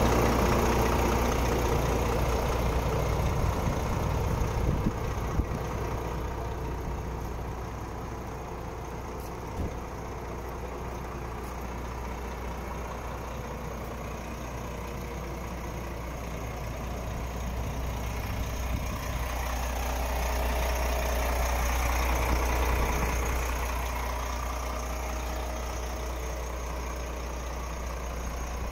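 Volvo FM 11.410 truck's 11-litre straight-six diesel idling steadily, louder at first and again for a few seconds about twenty seconds in.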